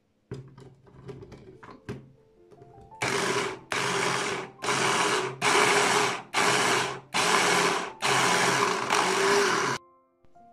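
Electric hand-blender chopper pulsed in about seven short runs in quick succession, its blade whirring through parsley and vegetables in the plastic bowl, then stopping abruptly.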